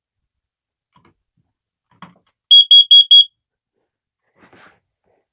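Carbon monoxide alarm sounding on its test: four quick, loud, high-pitched beeps in a row, about two and a half seconds in, the four-beep pattern that signals carbon monoxide. A faint click comes just before the beeps.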